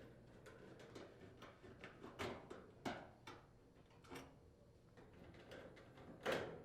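Faint, scattered clicks and taps of a nut driver working the mounting screws out of a dryer's sheet-metal front bulkhead, with a louder knock near the end.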